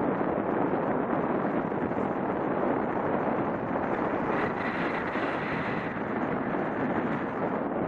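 Steady rush of the airstream over the camera microphone of a paraglider in gliding flight.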